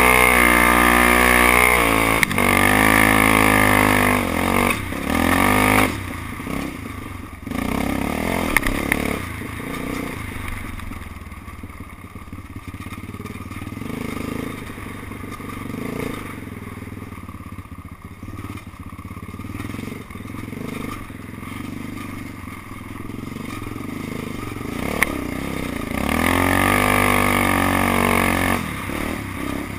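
Yamaha Raptor 660R quad's single-cylinder four-stroke engine revving hard, pitch climbing and dropping with the throttle and gear changes. After about six seconds it eases to a lower, quieter run, with clattering and knocks from the machine over the rough trail. Near the end it opens up loud again.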